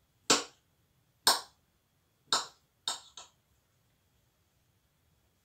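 Kitchen knife chopping boiled potato against a cutting board: five sharp knocks about a second apart, the last two close together, then quiet.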